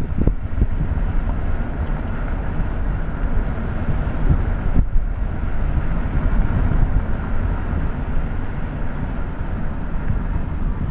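Steady low rumble of a car driving slowly, engine and tyre noise heard from inside the cabin, with a few light bumps.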